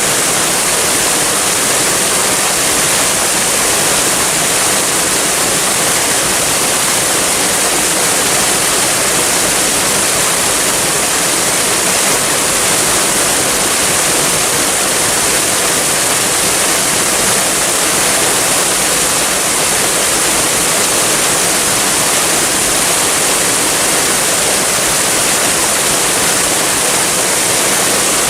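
Waterfall, a steady, unbroken rush of falling water with a bright hiss.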